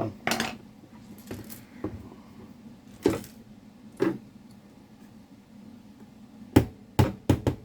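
Scattered sharp clicks and knocks of small hand tools and the hard plastic case of a Labradar radar chronograph being handled during disassembly, several quick ones bunched near the end.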